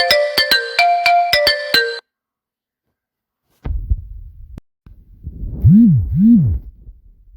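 Phone incoming-call ringtones: a bright, plucked repeating melody cuts off about two seconds in, and after a short silence a second ringtone starts with a low rumble and two swooping tones that rise and fall.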